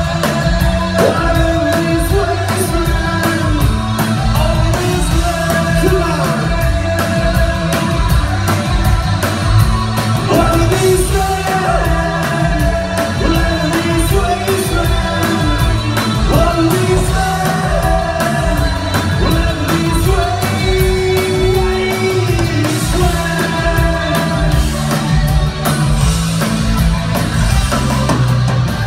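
Rock band playing live, with electric guitars, drums keeping a steady beat, and a male lead vocal singing over them. Heard from among the audience, with the reverberation of a large hall.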